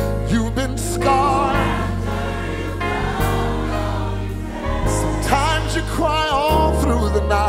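Gospel song: a choir singing held, wavering notes over a steady bass line.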